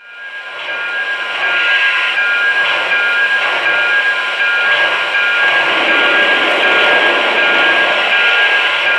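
Steam locomotive sound of a standing Dreyfuss Hudson: a loud, steady hiss of steam that swells up over the first second or two, with faint tones pulsing about twice a second.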